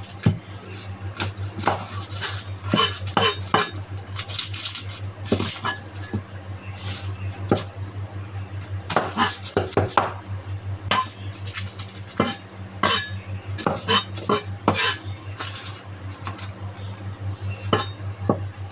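Irregular light clicks, taps and clinks of kitchen utensils and a dish as garlic cloves are peeled, over a steady low hum.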